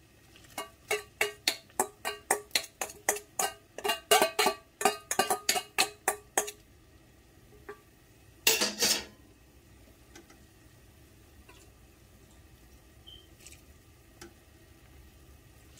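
Metal spoon clinking and scraping against a stainless steel bowl, knocking crab meat out into a pot of soup, with sharp ringing taps about three a second for the first six seconds. A single brief rushing noise follows a couple of seconds later, then only faint background.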